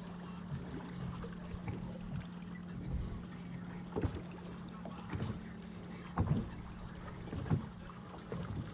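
Small boat at anchor: water lapping against the hull, a steady low hum that fades out about six seconds in, and a few short knocks.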